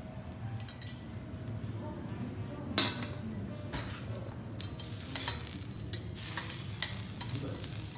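Vegetables sizzling in oil on a hot teppanyaki iron griddle, with a sudden loud hiss about three seconds in. From about halfway on, metal spatulas click and scrape on the griddle plate.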